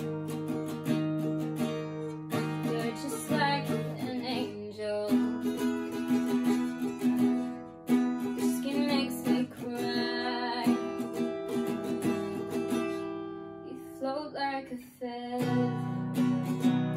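Capoed steel-string acoustic guitar strummed in sustained chords, with a young woman singing over it. The guitar drops away briefly a few seconds before the end, then comes back in.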